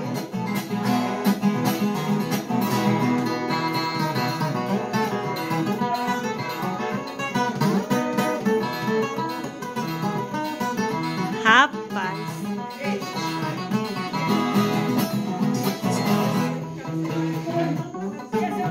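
Solo ten-string Brazilian viola caipira played as an instrumental, a steady run of plucked and strummed notes, with one sudden louder accent a little past the middle.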